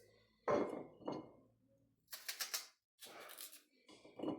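Red onion being broken apart by hand: a series of short crackling rustles of dry onion skin and layers.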